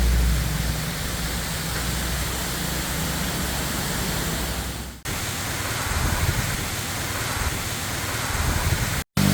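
Steady rush of a waterfall, an even hiss of falling water, with a low engine hum underneath. The sound breaks briefly about five seconds in and drops out for a moment near the end.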